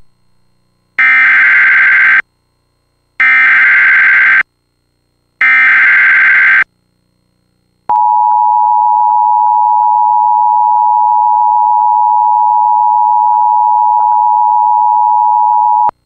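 Emergency Alert System header and attention tones. Three bursts of SAME header data tones, each about a second long, are followed by the steady two-tone EAS attention signal for about eight seconds. Together they announce an incoming emergency alert, here a flash flood warning.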